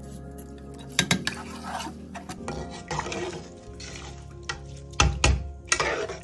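Metal spoon scraping and clinking against a large aluminium pot while stirring soaked rice into a liquid curry, a run of short scrapes with a heavier knock-and-scrape cluster about five seconds in.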